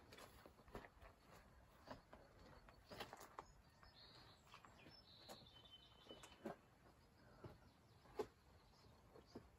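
Near silence: quiet desert outdoor ambience with a few soft scattered ticks and a faint high chirp about four to five seconds in.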